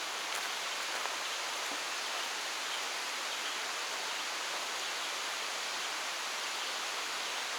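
Steady rush of a mountain stream, the West Kill, running over rocks.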